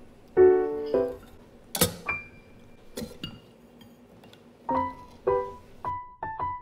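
Background piano music, notes and chords struck and left to fade: a chord, a sharp click about two seconds in, a short lull, then notes about every half second.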